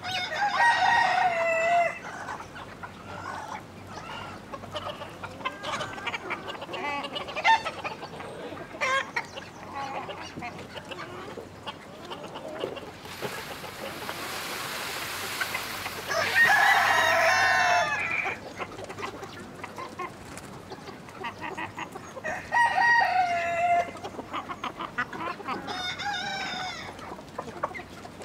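Chickens clucking, with a rooster crowing four times, each crow lasting a second or two. A steady hiss runs for about three seconds midway.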